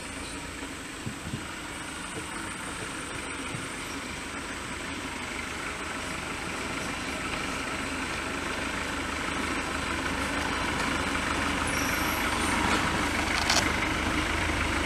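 A motor vehicle's engine idling steadily, growing gradually louder through the second half.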